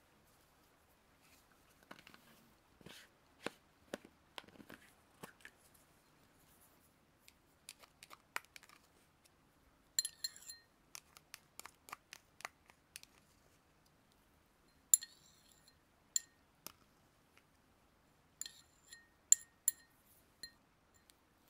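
Close-miked small handling sounds: soft scattered taps and rustles, then from about halfway on sharp clicks that each ring briefly and brightly, as of small metal or glass objects being handled, coming singly and in quick clusters.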